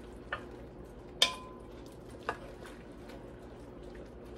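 Wooden spoon stirring chicken and diced vegetables in an enamelled Dutch oven, knocking against the pot three times; the second knock, about a second in, is the loudest and rings briefly. A faint steady sizzle of the food cooking runs underneath.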